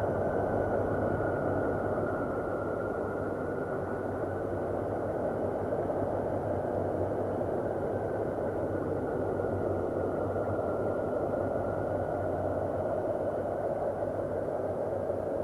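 Steady space-ambient drone presented as the sound of the planet Saturn: a dense, rushing rumble with a faint higher tone that wavers slowly in pitch, and a middle tone that grows stronger near the end.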